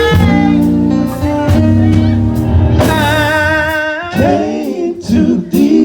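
Live gospel music: a band holds chords over a strong bass with guitar, and a male singer sings a long note with vibrato from about three seconds in, followed by short sung phrases.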